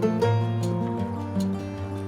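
Background music led by acoustic guitar, with a steady light beat.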